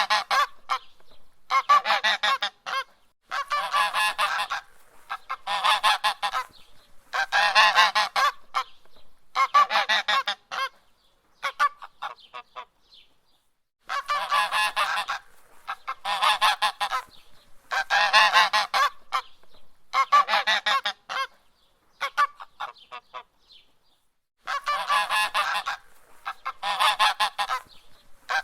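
A goose honking in repeated bouts of about a second each, roughly every two seconds, with two longer pauses of a couple of seconds.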